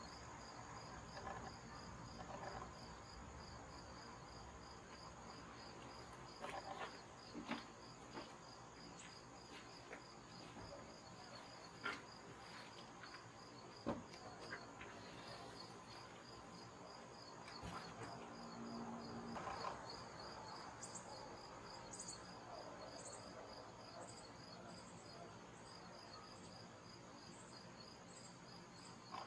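Faint insect chorus, likely crickets: an even, rapid pulsed chirp over a second steady high trill, with a few short sharp clicks scattered through it.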